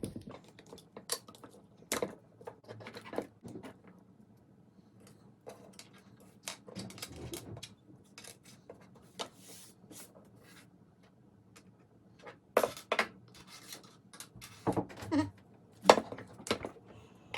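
Small metal parts and tools clicking and clinking as the robot's back wheels are taken off, in scattered irregular knocks with a cluster of louder ones near the end.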